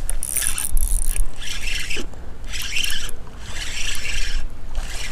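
Spinning reel cranked in spurts while a hooked bass is reeled in: a rasping whir that starts and stops several times.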